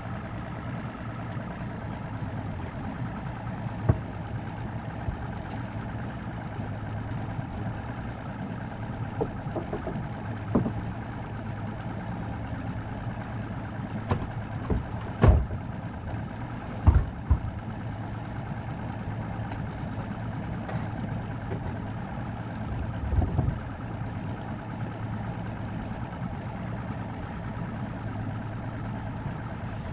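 Boat motor idling with a steady low hum. A few sharp knocks and thumps cut in, the loudest about halfway through and a short cluster about two-thirds of the way in.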